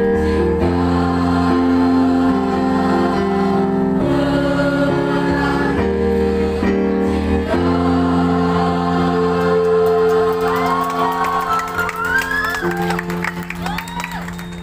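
Mixed choir of boys and girls singing held chords that change every second or two. In the last few seconds the final chord is held and fades while the audience whoops and cheers over it.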